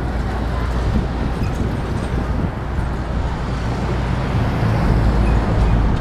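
Road traffic passing close by, a steady tyre and engine noise, with wind rumbling on the microphone.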